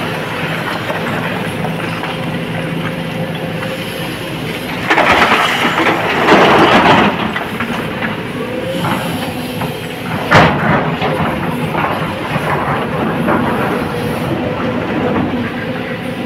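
Sany excavator's engine and hydraulics running steadily under load. About five seconds in, a long crashing rumble of blasted rock pouring from the bucket into a dump truck's steel bed, then a single sharp bang about ten seconds in.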